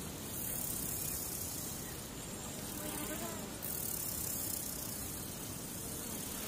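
Steady hiss of static on an audio feed, its highest part dropping away and returning in stretches of a second or more.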